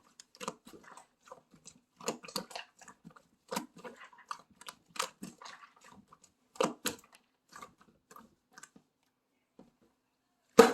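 Slime being squeezed and poked by hand, giving irregular sticky clicks and small pops, several a second, with one much louder pop near the end.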